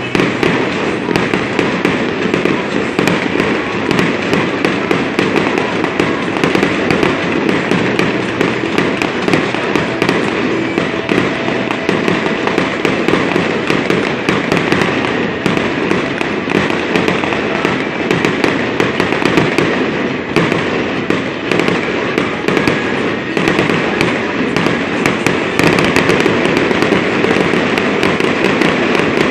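Fireworks display: a continuous dense run of crackling and popping from aerial shells and ground fountains, full of sharp cracks with no pause.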